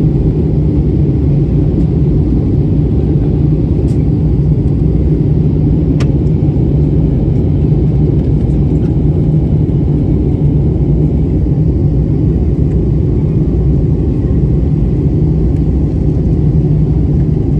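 Steady loud cabin rumble of a jet airliner descending to land: engine and airflow noise heard from inside the cabin, deep and even, with a steady low hum.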